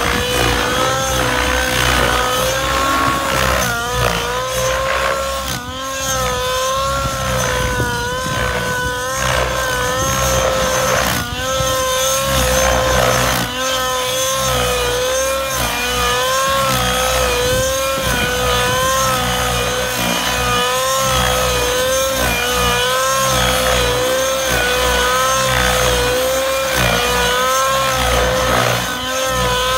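Align 700XN nitro RC helicopter in aerobatic flight. Its two-stroke glow engine and main rotor make a steady high whine that wavers up and down in pitch, with a few brief dips.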